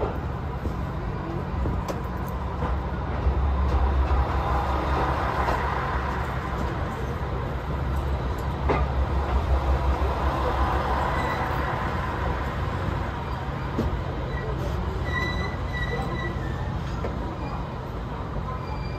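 Train moving on rails: a steady low rumble, heaviest in the first half, with a faint high-pitched wheel squeal a few times later on.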